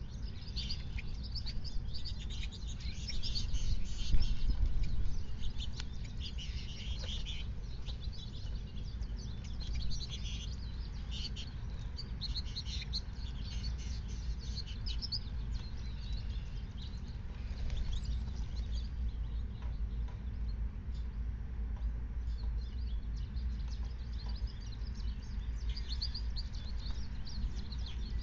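Wild birds chirping and calling in quick, high, overlapping notes, busiest in the first several seconds and again near the end, over a steady low rumble.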